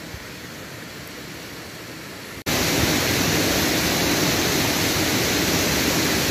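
Steady rushing of a waterfall, with no distinct pitch or beat; it jumps abruptly louder about two and a half seconds in and then holds steady.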